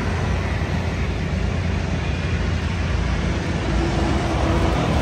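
Steady rumble of a motorcycle riding at road speed, engine and wind noise, with a train running by alongside.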